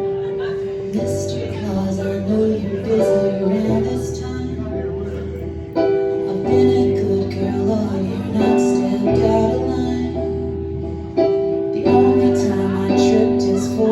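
Live band music, an instrumental passage led by guitar with sustained chords over a low bass line, without singing.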